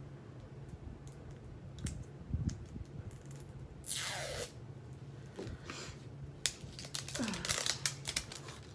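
Small handling noises of a cosmetic product and its packaging: scattered light clicks and rustles, with two short swishing sweeps about four and seven seconds in.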